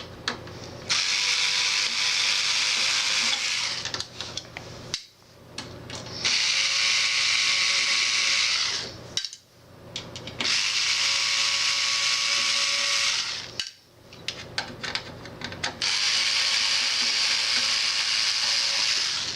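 Electric screwdriver running in four bursts of about two and a half to three seconds each, backing out the four screws that hold the power supply in its chassis, with small clicks of handling between bursts.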